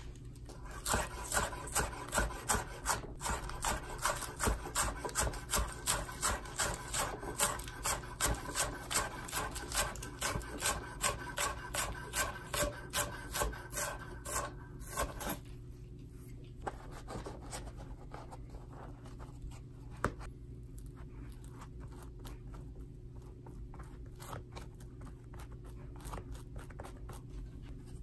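Knife shredding iceberg lettuce on a wooden cutting board: a crisp slice and a knock on the board, about two to three strokes a second, for roughly the first half. The strokes then stop and give way to softer rubbing and scraping, with a single click partway through.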